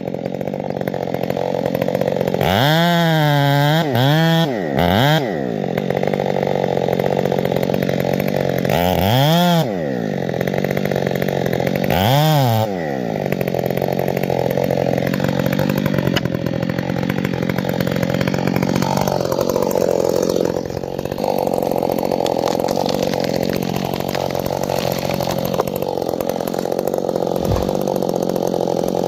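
Husqvarna 572 XP two-stroke chainsaw running hard and steadily, revved up and let back down three times in quick succession near the start, and twice more a few seconds later.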